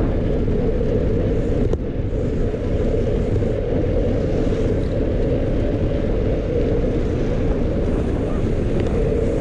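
Wind buffeting the microphone of a camera riding along on a bicycle, a steady low rush with one small click a little under two seconds in.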